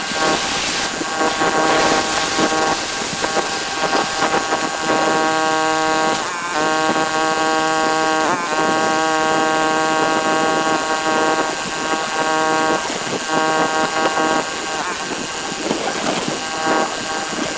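Pressure washer's engine running steadily with the hiss of the high-pressure water spray; the engine's pitch dips briefly twice.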